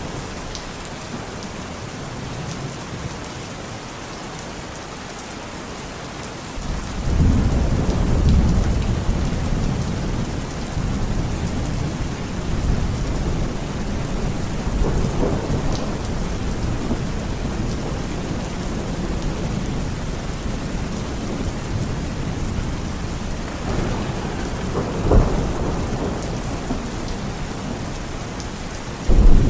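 Steady rain with thunder: a deep rumble swells about a quarter of the way in and rolls on, with a short sharper crack near the end.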